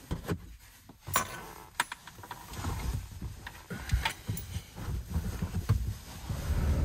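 Someone moving about in a parked van's cab and climbing into the driver's seat: scattered clicks and knocks, with clothing and seat rustling.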